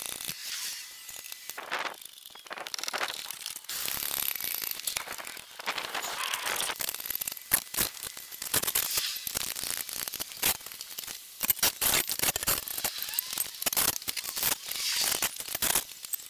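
MG TF being jacked up under its rear subframe: an irregular run of metallic clicks, knocks and scrapes from the jack and stands.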